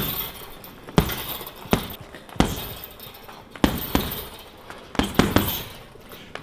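Gloved punches landing on a heavy punching bag: single hard thuds about a second apart, then a quick combination of several blows about five seconds in.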